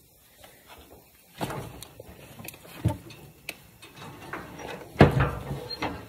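Clunks and knocks of someone climbing into a skid-steer's steel cab, with handling rustle between them. The loudest thump comes about five seconds in.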